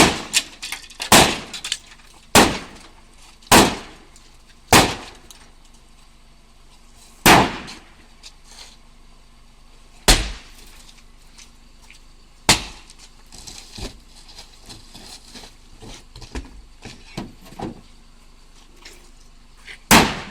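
Sledgehammer blows smashing a Renault Laguna's body and glass. The first five come in quick, regular succession, then three more follow spaced out, and a last one comes near the end. Breaking glass and small clinking fragments sound between the later blows.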